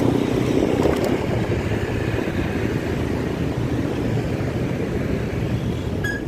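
Steady street traffic noise, mostly motorbikes running past, with a short high tone near the end.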